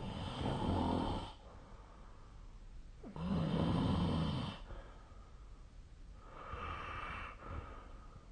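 A sleeping person snoring: three noisy breaths about three seconds apart, the second the loudest and lowest-pitched, the third fainter.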